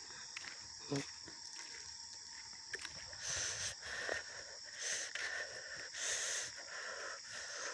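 Crickets and other night insects chirring steadily in a high band, with three or four soft hissing swells in the second half.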